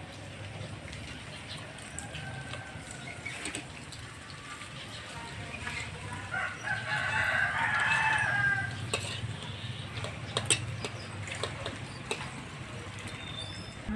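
A rooster crowing, one long call about six and a half seconds in, over a steady low hum, with a few light clicks of spoons on plates.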